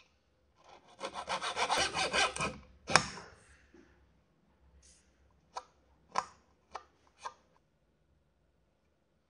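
A small saw cutting through a clamped wooden popsicle stick in quick back-and-forth strokes for about two seconds, then a sharp crack as the offcut breaks away. A few light clicks follow.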